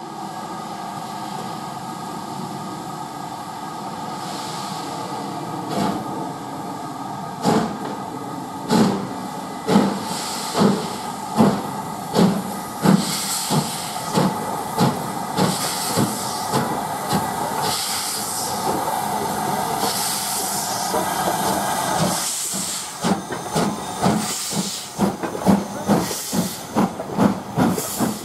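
LMS 'Black 5' 4-6-0 steam locomotive starting a train away: a steady hiss of steam, then exhaust beats that come faster as it gathers speed. Near the end the carriages roll past with a regular clatter of wheels over rail joints.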